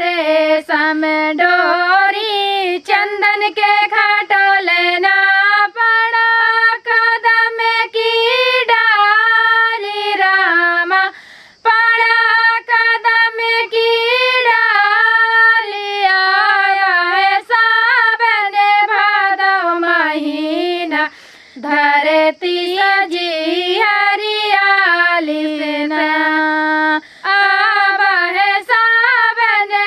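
Two women singing a Hiduli folk song of the Vindhya region, with no instruments heard, the melody wavering and gliding between held notes. The singing breaks off briefly for breath about 11 and 21 seconds in.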